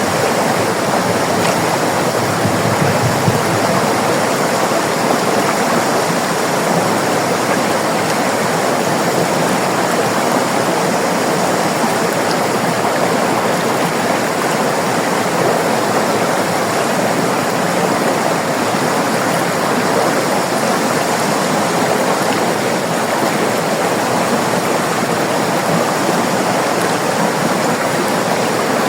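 River water flowing and rushing steadily over rocks, an even, unbroken sound of running water.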